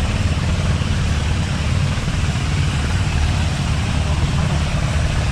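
Steady low rumble of a motor vehicle running, with a hiss over it.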